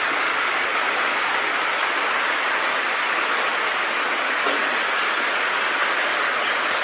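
Steady rush of water flowing through a tunnel, with a few faint ticks over it.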